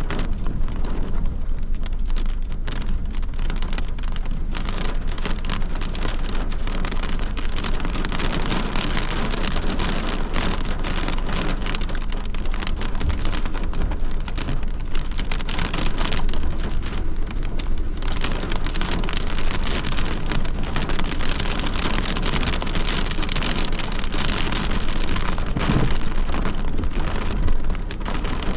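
Heavy rain from a severe thunderstorm pouring steadily onto a hard surface: a dense hiss made of countless individual drop impacts.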